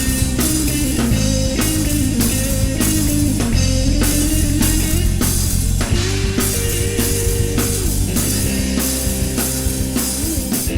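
Instrumental break of a cumbia-rock song, with no singing: a drum kit keeps a steady beat under a melody line.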